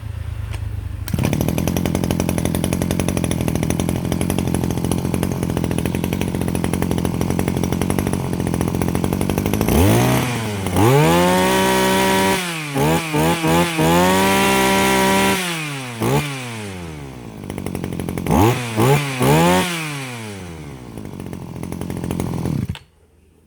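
Zenoah G2KC 23cc two-stroke brush cutter engine catching about a second in and running steadily, then revved up and down in repeated throttle blips. It cuts off suddenly near the end.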